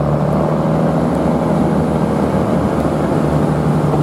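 Queensland Rail 2000 class rail motor running along the line, heard from on board: a steady engine hum over an even running noise.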